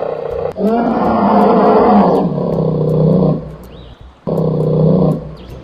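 A bear's roar sound effect: one long pitched roar starting about half a second in and lasting nearly three seconds, then a shorter roar near the end.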